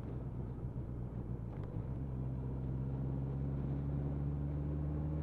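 Motorcycle engine running at low road speed under wind and road noise; about two seconds in its steady hum becomes clearer and a little louder.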